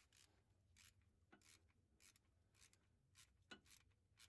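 Near silence, with faint, irregular clicks from a ratchet and 13 mm socket tightening the nut on a starter solenoid's battery-cable terminal; the loudest click comes about three and a half seconds in.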